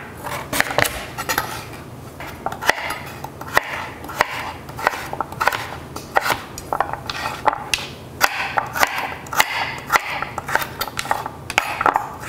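Chef's knife cutting peeled raw winter squash into wedges and cubes on a cutting board: an irregular run of knocks as the blade goes through the firm flesh and strikes the board, several a second.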